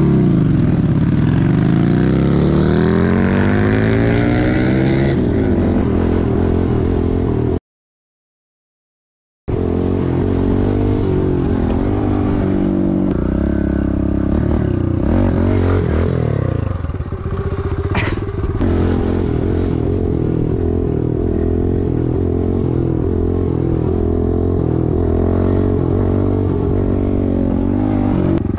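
Kawasaki KLX110L pit bike's small single-cylinder four-stroke engine running under a rider, revving up and pulling through the gears, with the pitch rising over the first few seconds and changing again in the middle. The sound cuts out completely for about two seconds near the eight-second mark.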